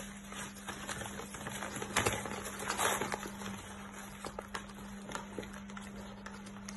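Dachshund puppies tearing and crumpling brown paper: crackling, rustling paper with small clicks of claws on the wooden floor, and louder rips about two and three seconds in.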